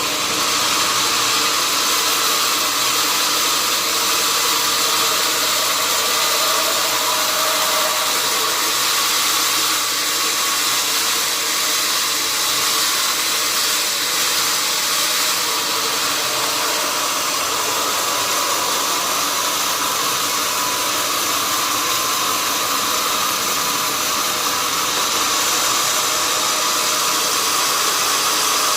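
Sawmill machinery running steadily: a loud, even mechanical noise with a constant whine through it, unchanging throughout.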